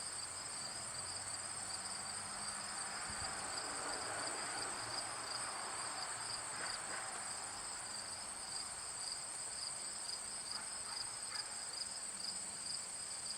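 Insects trilling steadily outdoors, a continuous high-pitched chorus in two pitches, the lower one finely pulsing.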